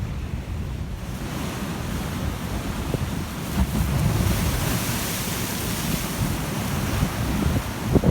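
Storm-driven sea surf: a wave breaks and washes up the beach, its rushing hiss building from about a second in and strongest midway. Strong wind buffets the microphone throughout, giving a constant low rumble.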